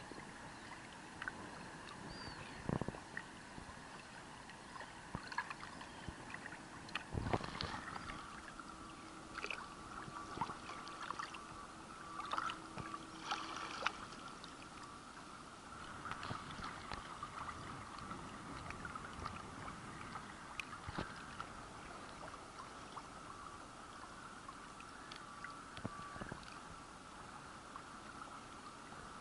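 Small ripples of shallow water lapping and splashing right at the microphone at the waterline, with many irregular small splashes and drips. A faint steady hum runs underneath.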